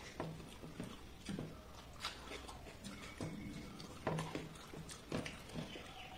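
Close-up eating noises: soft, irregular wet clicks and smacks of chewing, and fingers squishing watery panta bhat (soaked rice) in a steel bowl.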